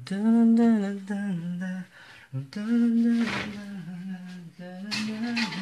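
A person humming a slow tune in three phrases of long, held notes.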